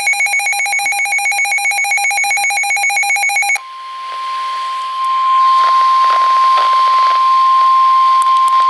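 A weather alert radio's built-in alarm beeping rapidly, a shrill many-toned pulse that cuts off about three and a half seconds in. The National Weather Service 1050 Hz warning alert tone then comes through the radio's speaker as one steady high tone over static hiss.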